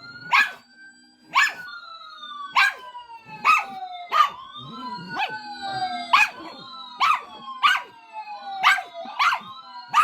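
A dog barking sharply and repeatedly, about a dozen barks, at a sound it is agitated by: long wailing tones that slide slowly down in pitch, overlapping one another.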